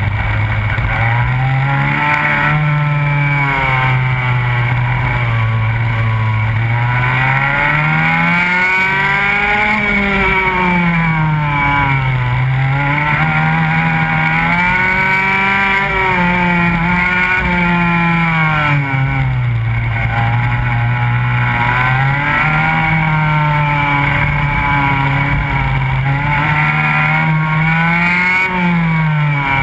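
Go-kart engine heard from on board, running hard throughout, its pitch climbing as it accelerates and dropping as it slows, again and again every few seconds around the track's corners and straights.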